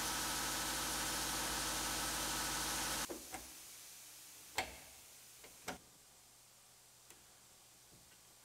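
A steady machine hum that cuts off abruptly about three seconds in. After it come a few short clicks as the antenna wiring harness's plastic clips are pressed into the truck cab's roof rail.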